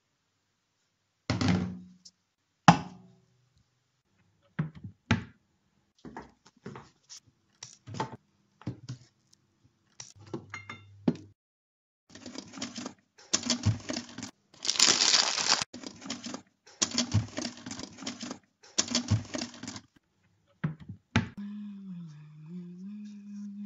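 Kitchen handling sounds: scattered thunks and knocks of cupboard doors and dishes, then several seconds of rustling and crinkling in bursts. Near the end a low steady tone comes in and dips briefly in pitch.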